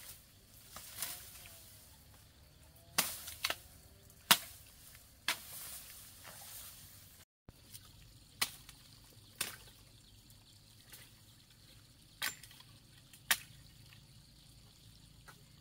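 Bamboo stems being chopped: about nine sharp cracks, unevenly spaced.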